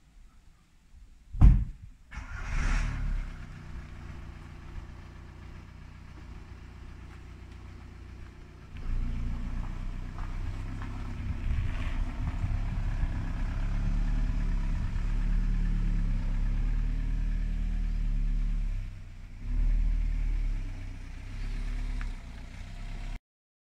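A car engine running close by, its low hum wavering slightly in pitch, getting louder about nine seconds in, and cutting off suddenly near the end. Before it there is a single sharp knock.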